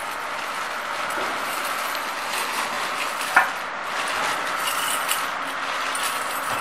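Steel parts of a machine frame being handled: a single sharp metal clank about halfway through as the steel trough frame is seated on its tripod stand, with a few light clinks after, over a steady background hiss.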